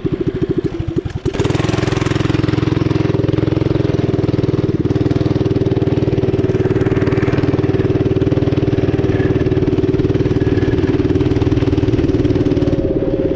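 Mini bike's small engine, fitted with an exhaust header, pulsing at low revs and then opened up about a second in, running hard and steady as the bike accelerates down the road.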